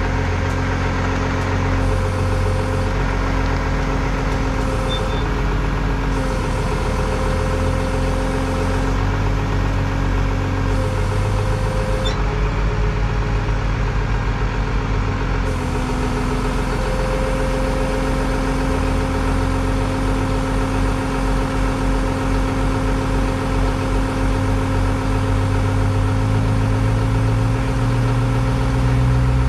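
A vehicle engine running steadily at idle, its low throb shifting slightly in rhythm now and then.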